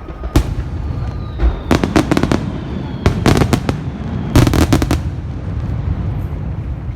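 Fireworks bursting: a single bang about half a second in, then three quick volleys of sharp crackling reports about a second apart, over a steady low rumble.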